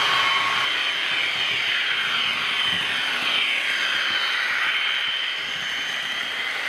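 H0-scale model of a DB V200 diesel locomotive running on the layout: a steady whine with several tones, which slide down in pitch together in the middle.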